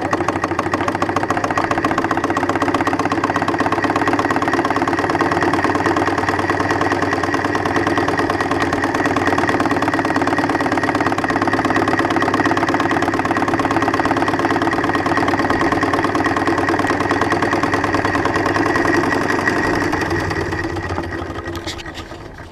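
3-inch scale Case steam traction engine running as it is driven, a steady mechanical clatter with a fast, even beat. It fades away over the last two seconds.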